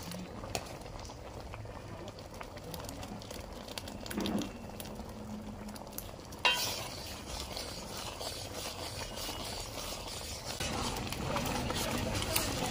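Metal ladle stirring a pan of boiling jaggery payasam with jackfruit, over steady bubbling, with one sharp knock about six and a half seconds in. The bubbling grows busier near the end.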